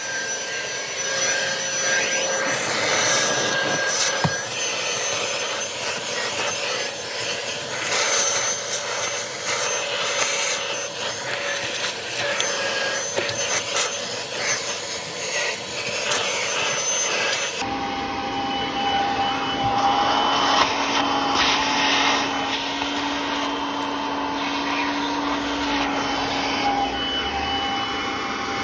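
Vacuum cleaner running steadily, its nozzle rubbing and scraping over car floor carpet as it sucks up crumbs and debris. The motor's pitch changes about two-thirds of the way through.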